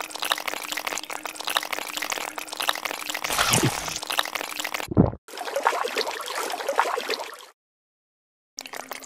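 Wet, crackling slurping and gurgling sounds, a stop-motion eating sound effect of a koi sucking down an eel. There is a low thump about five seconds in, and the sound cuts out entirely for about a second near the end.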